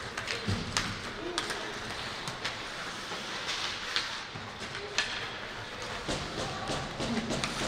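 Ice hockey game sounds in a rink: irregular sharp clacks and knocks of sticks, puck and boards over a steady hiss.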